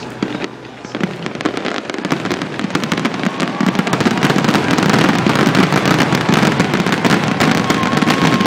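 Aerial fireworks in a rapid barrage: many shells bang and crackle close together. They grow denser and louder over the first few seconds, then keep up a near-continuous crackle.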